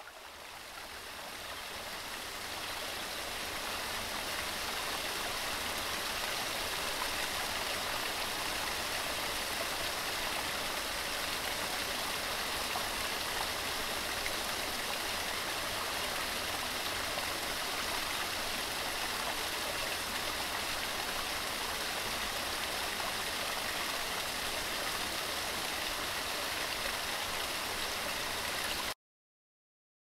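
Steady rushing of water pouring over a small stone weir. It fades in over the first few seconds and cuts off suddenly near the end.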